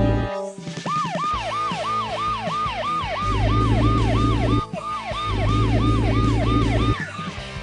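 Cartoon emergency siren wailing in quick falling whoops, about three a second, starting about a second in and stopping near the end, over a low rumble that comes and goes.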